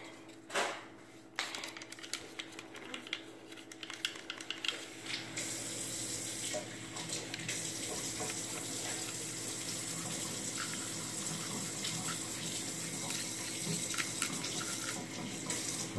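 A few small clicks and handling knocks, then, from about five seconds in, a steady rush of water running from a tap.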